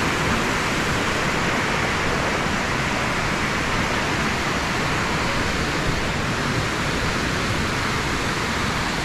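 Waterfall cascades rushing steadily, an even roar of falling water without a break.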